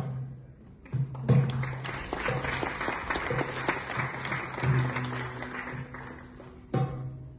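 Audience applauding for about five seconds, starting about a second in and fading near the end, over performance music with low drum beats.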